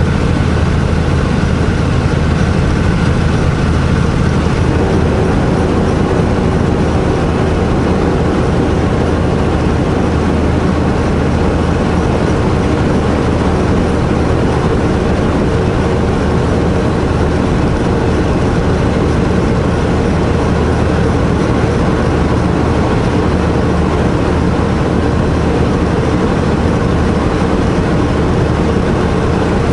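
Semi truck's diesel engine running steadily while driving, heard from inside the cab: an even low drone with road noise, no change in pitch or level.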